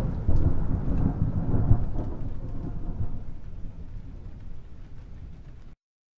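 Low rumble from the intro's sound effect, fading steadily away after two heavy booms and cutting off to silence near the end.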